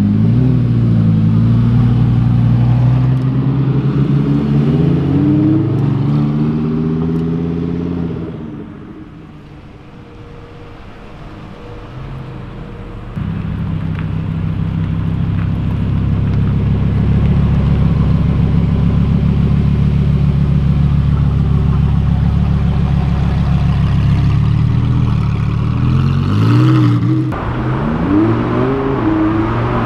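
Car engines pulling away one after another: an engine revs up and drives off, fading out, then another engine starts up loud and close, runs steadily, and revs up again several times near the end as it pulls away.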